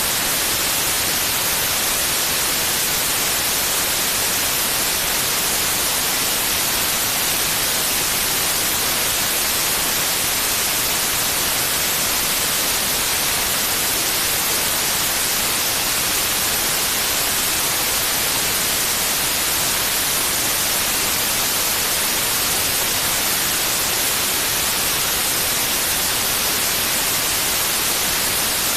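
Steady white noise: an even, unbroken hiss, strongest in the high end, played as a sleep aid for babies.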